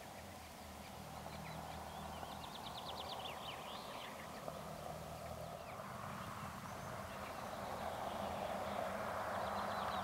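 Distant Audi Q7 3.0 TDI V6 diesel SUV driving fast on a gravel road, its engine and tyre noise growing steadily louder as it approaches. A bird trills briefly a few seconds in and again near the end.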